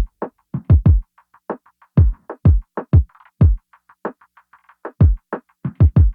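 Electronic background music: a drum-machine beat of deep, falling-pitch kick drums and short clicky percussion hits.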